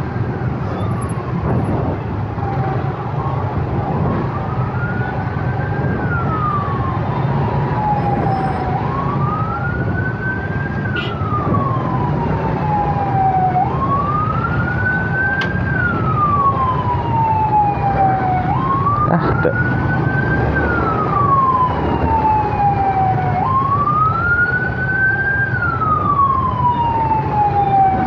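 Emergency vehicle siren wailing, its pitch rising and falling about every five seconds, over the steady rumble of motorcycle and car engines in congested traffic.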